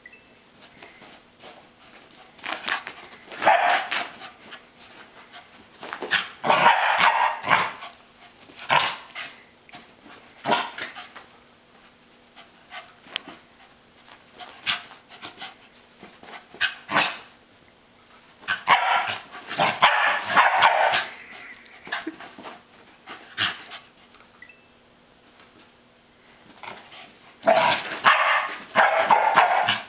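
Corgi barking: single sharp barks and quick flurries of several, with quieter gaps between, excited play barking at a flashlight beam.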